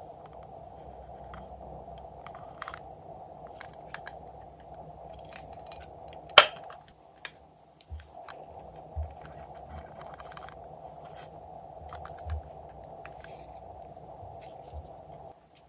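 A plastic compact case handled with small clicks and one sharp, loud snap about six seconds in, over a steady background hum.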